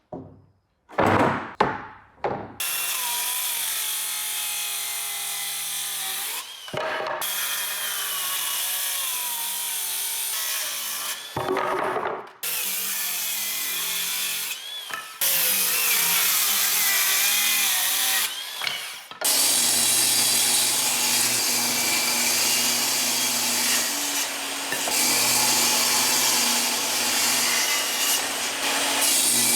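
Woodworking power tools cutting wood: a few sharp knocks near the start, then several long stretches of machine cutting with short pauses between them, and a steadier motor-driven tool running with a low hum through the last third.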